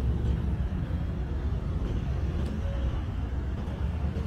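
Steady low rumble of passing motor traffic on a city street.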